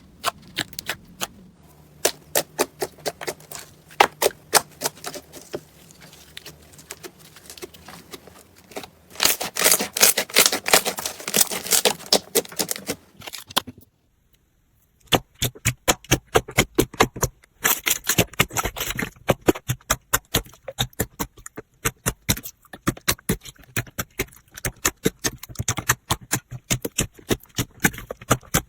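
Slime being squeezed and pressed by hand, giving rapid crackling and popping clicks, the sound of crunchy slime. The sound cuts out for about a second near the middle, then the clicking starts again.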